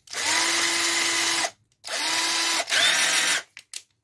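Skil 2212 9.6 V cordless drill/driver motor spun up free-running in short bursts, on its freshly charged battery. The first run lasts about a second and a half. After a brief pause a second run changes pitch partway through and stops a little before the end.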